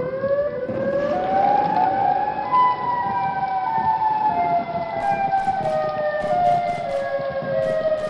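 Several civil-defence air-raid sirens wailing together, their overlapping tones rising over the first two seconds and then slowly falling: the attack-warning signal.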